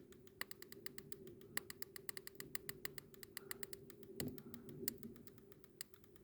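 Faulty USB wall socket crackling lightly with a plug in: irregular quick electrical clicks, several a second, over a faint steady hum. The crackling comes from a fault in the socket itself, not the wiring.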